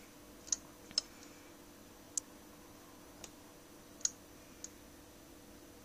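Handling noise: six faint, sharp clicks and taps at uneven intervals as the phone and camera are held and moved, over a faint steady hum and a thin high whine.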